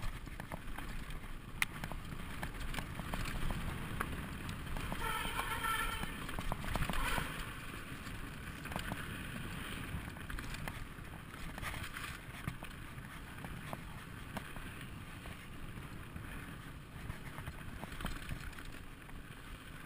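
Mountain bike, a 2012 Specialized SX Trail, riding down a dirt singletrack: tyres rolling over dirt and rocks, and the bike rattling with scattered sharp clicks over bumps, under a steady rush of wind on the microphone.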